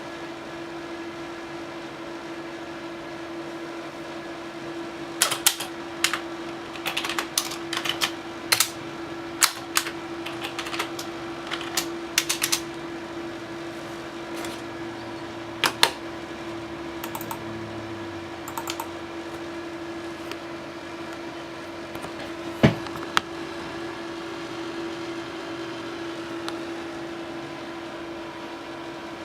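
Cooling fans of three EVGA GeForce GTX 970 SC graphics cards running with a steady hum. A quick run of sharp clicks comes about five to thirteen seconds in, with a few single clicks later.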